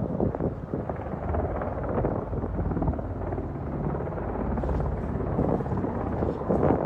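A helicopter flying, a steady rumble of rotor and engine with wind buffeting the microphone.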